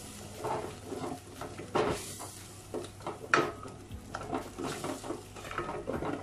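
Wooden spatula stirring and scraping onion-tomato masala mixed with curd in a stainless steel pot, over a light sizzle. Irregular scrapes and clicks, with one sharper clack on the pot about three seconds in that rings briefly.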